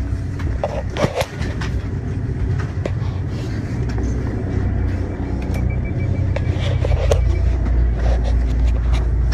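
Steady low rumble of a fishing boat's engine running, growing louder about seven seconds in, with a few knocks and rubs as the phone is handled.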